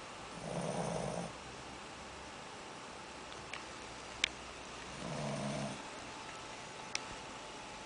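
Shih tzu puppy snoring: two snores, each just under a second long, about four and a half seconds apart. A couple of short, sharp clicks fall between them.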